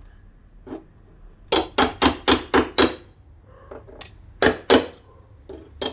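Hammer blows on metal as a rubber mount is driven into a Suzuki Bandit footrest mount bracket. There is a quick run of about six sharp strikes, then a few scattered ones, two of them hard. The mount is not going in: it needs a press to go in straight.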